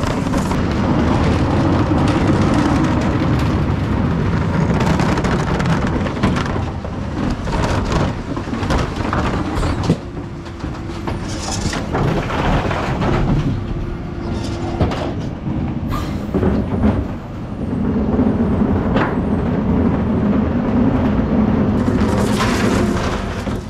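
Refuse truck at work emptying wheelie bins: the engine and hydraulics run under load as the rear bin lift tips green wheelie bins into the hopper, alongside the rumble of bins being wheeled over paving and gravel. The loud rumble eases for a few seconds in the middle, where a steady hum and some knocks come through.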